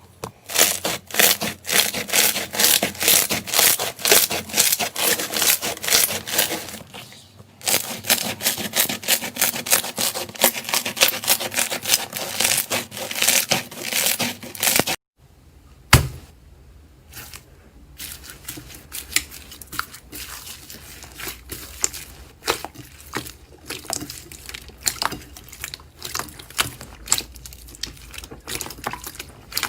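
Slime being squished and pressed by hand, making rapid runs of crackling pops. About halfway through the sound cuts off, then comes one sharp thump, followed by softer, sparser crackles.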